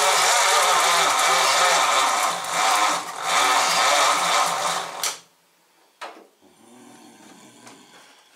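Starter motor cranking the 1937 Ford flathead V8 for about five seconds without it firing: a loud whir with an even pulsing beat, then stopping sharply. About a second later a click, then a quieter, shorter whir. The engine does not catch, and the owner takes the starter motor for the fault.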